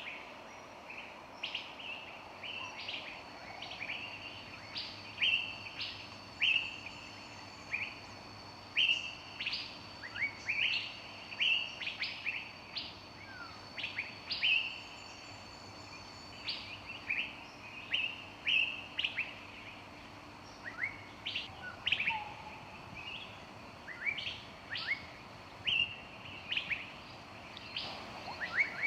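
Several small songbirds chirping: many short, sharp notes, one or two a second, over a faint steady hiss and a thin, high held note.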